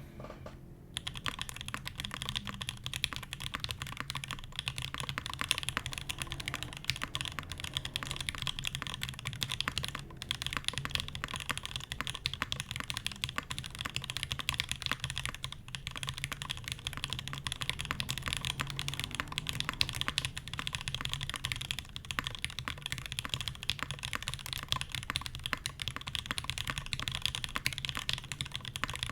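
Continuous fast typing on an Iron180 custom mechanical keyboard with lubed Alpaca linear switches on an undampened G10 (FR4) plate and GMK ABS keycaps: a dense clatter of keystrokes. It pauses briefly twice, about ten seconds in and again near the middle.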